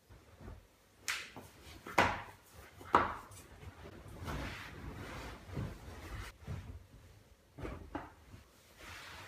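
Slide sandals being kicked off and dropping with a few sharp knocks, the loudest two about two and three seconds in, then a long rustle of a blanket being pulled over a body on a sofa, with a few softer knocks near the end.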